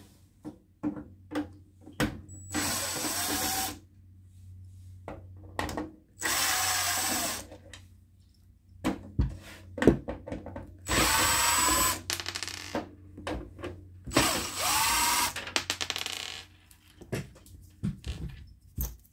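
Cordless drill/driver running in four short spurts of about a second each, backing screws out of a CRT monitor's plastic back housing. Sharp clicks and taps of handling fall between the runs.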